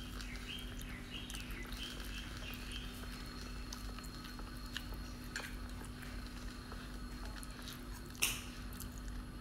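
A person eating instant noodles with chopsticks: chewing with small mouth and chopstick clicks, and one short loud slurp of noodles about eight seconds in. A steady low hum runs underneath.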